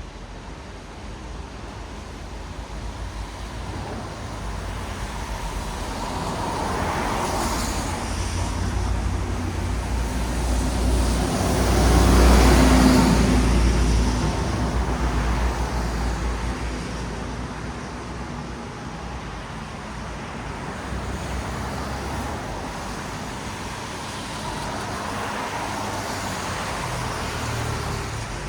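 Traffic on a wet city road: a steady hiss of tyres on wet asphalt, with vehicles passing, the loudest about halfway through with a low engine rumble and a second, softer pass near the end.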